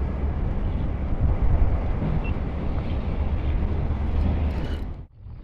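Wind buffeting the microphone: a loud, uneven low rumble with a hiss above it, cutting off abruptly about five seconds in.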